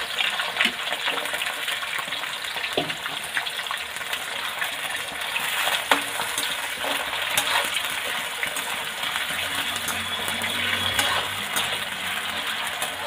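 Potato slices sizzling as they fry in hot mustard oil in a kadhai. A metal slotted spoon stirs them, clinking and scraping against the pan now and then; the sharpest clink comes about six seconds in.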